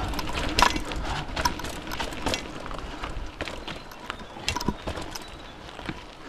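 Mountain bike rattling and clattering over a rough dirt trail in irregular knocks, with wind rumbling on the camera's microphone. Both ease off as the bike slows.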